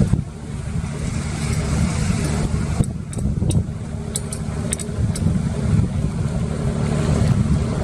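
Strong wind buffeting the microphone, heard as a loud, uneven low rumble, with a handful of short sharp clicks about three to five seconds in.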